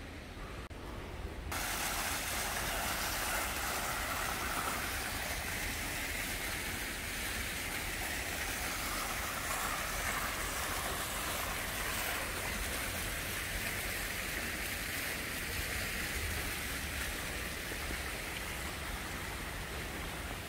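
Fountain water jets splashing into a basin: a steady rushing hiss that comes in suddenly about a second and a half in.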